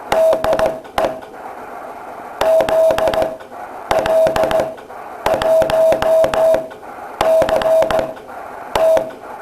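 Morse code sent by hand on a straight key: a steady mid-pitched beep keyed on and off in short dots and longer dashes, bunched into letters with short pauses between. The key's contacts click sharply as each element starts and stops.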